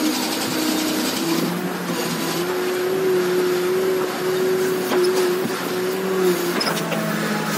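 Case 580 Super R backhoe loader's diesel engine running steadily under hydraulic load while the backhoe digs and swings. Its pitch steps up a little over two seconds in and drops back about six seconds in.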